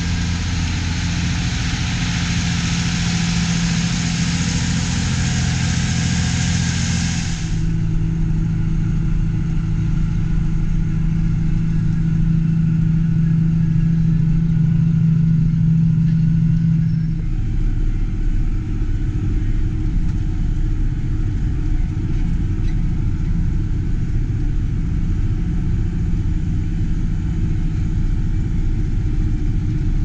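John Deere 8650 four-wheel-drive tractor's six-cylinder diesel engine running steadily under load while it pulls a grain cart. A loud hiss lies over it until about seven seconds in. After that the engine is a muffled hum heard from inside the tractor's cab, and a steady low tone in it stops about halfway through.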